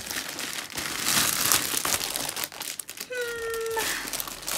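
Plastic mailer bag being cut open and handled: dense, continuous crinkling and crackling of the plastic packaging. A short steady squeaky tone sounds about three seconds in.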